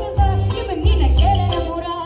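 An amplified live band playing, with heavy repeated bass notes under a melody line.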